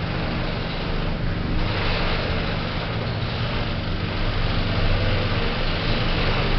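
Lift car in motion between floors: a steady hum and rumble of the travelling car, without pauses or changes.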